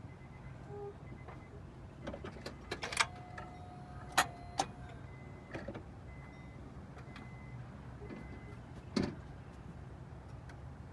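Scattered sharp clicks and knocks, one followed by a brief metallic ring, over a low steady hum.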